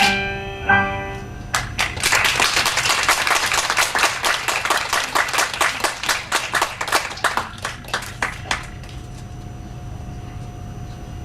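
The last held notes of a piece with piano fade out, then an audience applauds for about seven seconds. The applause stops suddenly near the end, leaving a faint steady hum.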